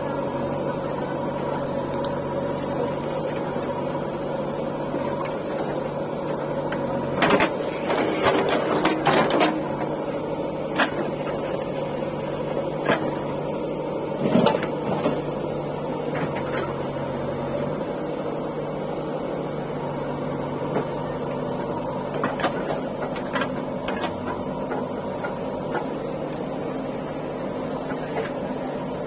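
JCB 3DX backhoe loader's diesel engine running steadily while the backhoe digs. A cluster of clanks and knocks comes about seven to ten seconds in, with a few single knocks later, from the bucket and arm working the dirt.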